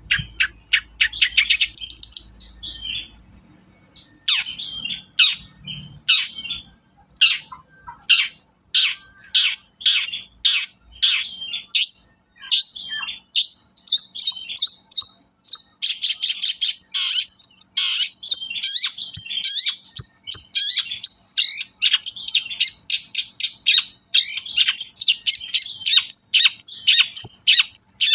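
Long-tailed shrike (pentet) singing a loud, varied song of sharp, quick high notes. It starts as separate calls and turns into a dense, unbroken chattering run about halfway through.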